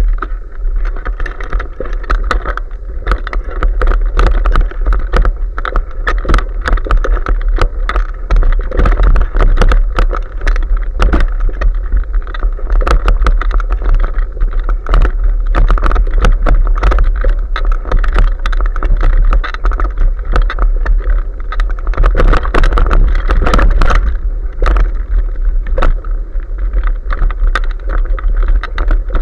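A bicycle ridden over a bumpy dirt trail covered in dry leaves, heard through an SJ4000 action camera mounted on the bike: a constant low rumble of vibration and wind on the microphone, the hiss and crunch of tyres rolling through the leaves, and frequent clattering knocks and rattles as the bike jolts over bumps.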